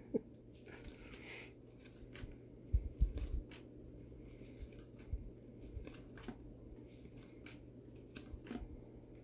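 2019 Bowman baseball base cards being flipped through one at a time by gloved hands: faint sliding and light clicks of card stock, with a few soft knocks about three seconds in.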